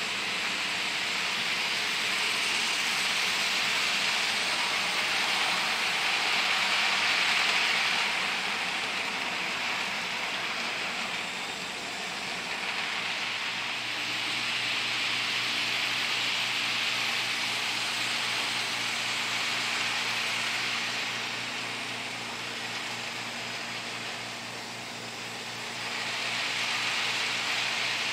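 HO scale model freight train, a Life-Like Chessie GP38 diesel with its cars, running on layout track: a steady whirring hiss of motor and wheels that swells and fades as the train comes nearer and goes away. A low steady hum joins it about halfway through.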